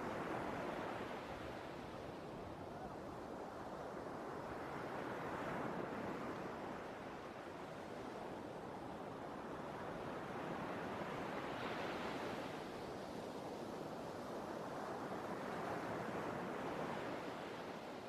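Sea waves breaking, a surge of surf about every five to six seconds over a steady wash of noise.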